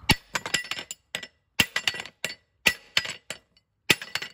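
Repeated sharp metal-on-metal strikes with a ringing clink, a heavy blow about every second and a few lighter rebounding clinks between them, as a brake caliper bolt on a GMC Sonoma is knocked out.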